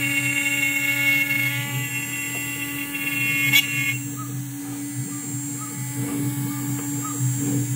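CNC router running, its spindle cutting a pocket in a board while the stepper motors drive the head, giving a steady hum with a high whine. About three and a half seconds in there is a sharp click and the high whine stops suddenly, after which faint short chirps repeat about twice a second.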